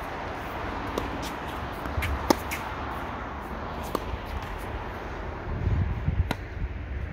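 Tennis balls being struck by a racket and bouncing on the court: about half a dozen scattered sharp pops, the loudest a little over two seconds in, over a steady background hiss with some low rumbling near the end.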